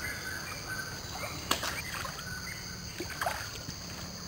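Fast-flowing muddy stream rushing, with a steady high insect drone over it and a few short sharp knocks or splashes, one about a second and a half in and a couple around three seconds.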